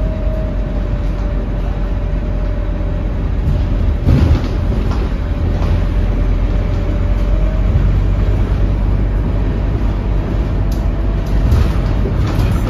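A Scania K230UB bus running under way, heard from inside the saloon: a steady low engine drone with road noise and a thin steady whine that fades out about seven seconds in and comes back near the end. A single thump about four seconds in.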